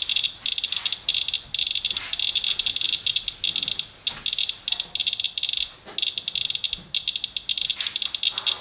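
Radalert Inspector Geiger counter clicking rapidly in a dense, high-pitched stream, broken only by brief gaps. The fast count rate is the sign of a radioactive sample: the display reads about 0.36 mR/hr, dozens of times normal background.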